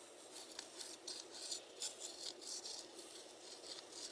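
Soldering gun tip scraping and rubbing in a flux-filled groove of a metal can lid, heard as faint, irregular scratchy strokes.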